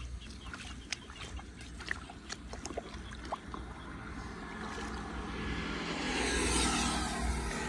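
Outdoor ambience beside a flooded road after rain: scattered short chirps and clicks over a low rumble, then a passing vehicle's tyres hissing on the wet road, swelling from about five seconds in and loudest near the end.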